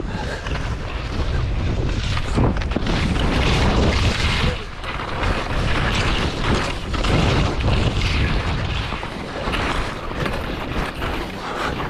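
Wind buffeting the camera's microphone with a heavy, gusting rumble, over the hiss of skis scraping across snow during a downhill run.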